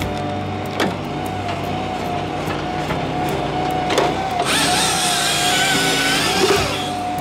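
Engine-driven firewood processor running steadily, with sharp knocks about one second in and again near four seconds. About four and a half seconds in, its chainsaw bar cuts through a log for about two seconds, a rasping whine over the engine.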